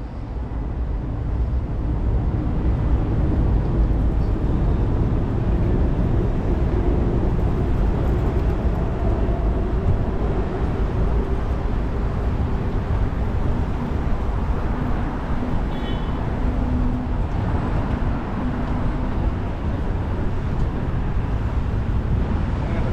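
City street traffic: a steady rumble of passing cars and buses at a busy intersection, fading in over the first couple of seconds.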